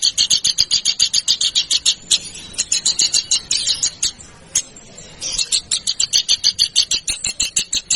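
A songbird recording of rapid-fire, sharp repeated notes, about ten a second, in two long bursts with a pause of about a second in the middle. These are the 'tembakan' phrases that bird keepers use to tutor contest birds.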